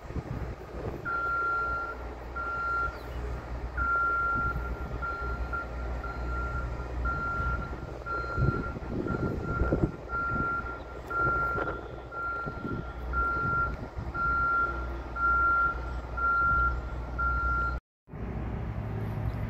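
Vehicle backup alarm beeping: a single steady high tone pulsing on and off about once a second, over a low outdoor rumble. It cuts off abruptly near the end.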